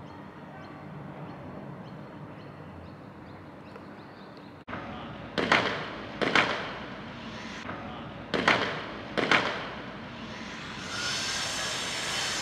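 Steady outdoor hum, then an abrupt cut to an edited-in title sting: four sharp, loud hits in two pairs, each ringing away. Near the end a steady outdoor hiss comes back.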